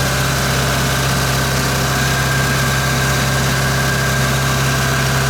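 A machine running steadily: a loud, even mechanical drone with a strong low hum.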